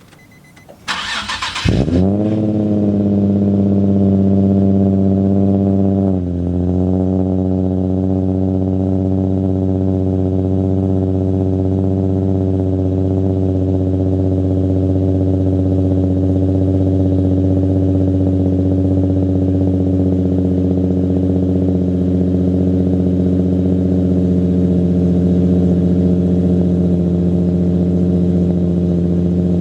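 Nissan 350Z's 3.5-litre V6 cranked over briefly by the starter, catching and settling into a steady high idle that steps down slightly about four seconds later, then idles evenly. It runs through freshly fitted high-flow catalytic converters that are not yet broken in.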